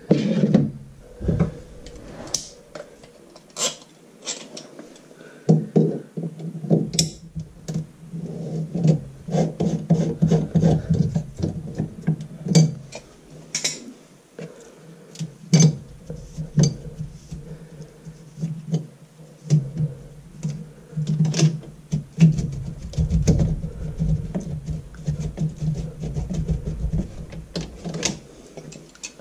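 Scattered knocks, taps and plastic clatters as a plastic bin is set down under a bathroom sink and hands work at the chrome P-trap's slip nuts, with a sharp knock at the very start. A steady low hum runs underneath.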